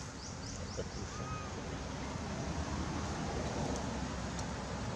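Steady outdoor background noise with a low rumble, like wind, with a few faint high chirps in the first half-second and a short faint whistled note about a second in.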